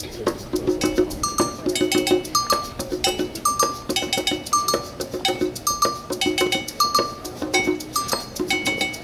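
Marching band percussion playing a fast, repeating rhythmic pattern of short, bright, pitched metallic notes.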